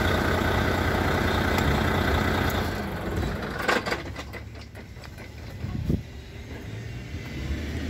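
Volvo D13 inline-six diesel engine idling steadily in a Volvo VNL truck, a little quieter after about three seconds. A couple of short knocks come near the middle.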